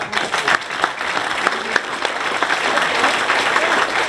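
Audience applauding: many hands clapping together at a steady level.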